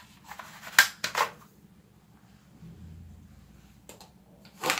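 Hard plastic clicking and scraping as a toy gun's muzzle piece is twisted and pushed onto its barrel: a few sharp clicks about a second in, and another short burst of clicks near the end.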